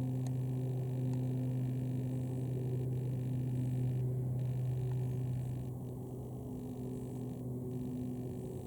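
A steady low hum that holds one pitch throughout, with fainter higher overtones.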